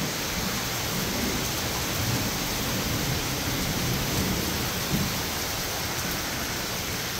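Heavy rain falling on a wooden porch and yard, a steady hiss. A low rumble of thunder runs under it for the first five seconds or so.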